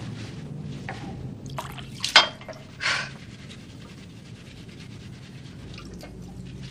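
A woman breathing heavily and the rustle of a blouse being pulled off, with two sharper rustles or breaths about two and three seconds in, over low steady tones.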